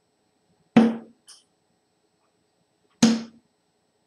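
Two sharp thuds about two seconds apart, each with a brief low ring: steel-tip darts striking a bristle dartboard. A lighter click follows just after the first.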